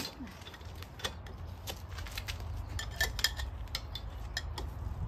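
Light, irregular metallic clicks and clinks of car hand tools (jack and wrench) being handled, over a steady low rumble.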